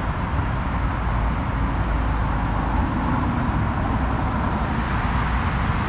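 Steady freeway traffic noise: a continuous low rumble of many vehicles, with no single vehicle standing out.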